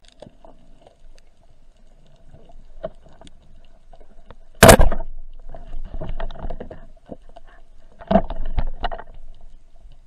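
Underwater knocks and clicks, heard through the camera underwater. One loud knock comes about halfway through, then scattered crackling clicks, and a second cluster of knocks near the end.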